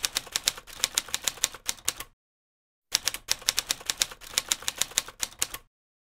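Typewriter sound effect: rapid key clacks in two runs with a pause of under a second between them, keeping time with on-screen text typed out letter by letter.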